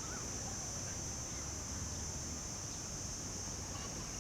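Morning outdoor ambience: a steady high-pitched drone over a low rumble, with the last of a bird's quick run of repeated rising-and-falling notes at the very start.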